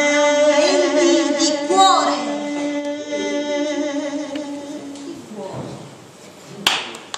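Two voices holding the song's last sung notes in harmony. The upper note stops about two seconds in and the lower one fades out about five seconds in. A single sharp click comes near the end.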